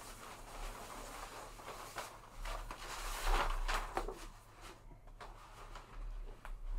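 A large paper art poster rustling and flexing as it is handled and lifted up, with a few light knocks. It is loudest about three seconds in.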